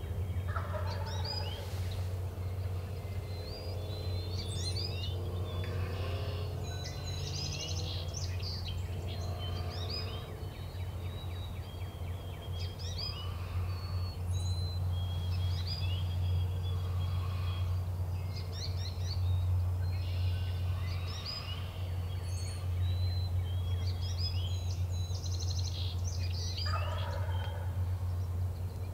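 Wild turkey gobbler gobbling several times, once near the start and again near the end, with songbirds chirping throughout and a steady low rumble underneath.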